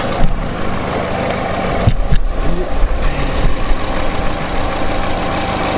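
Peugeot 206 engine idling steadily, soon after start-up, with the newly fitted oil cooler in circuit. A few low thumps come through, about a quarter second in and around two seconds in.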